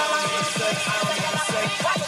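Electronic hip-hop music playing on a car stereo. Just after the start, a fast run of short falling bass notes comes in, about six a second.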